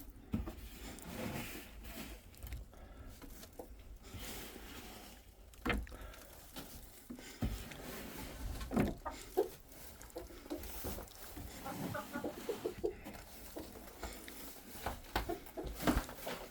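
Chickens clucking in short, scattered calls, with a few sharp knocks in between.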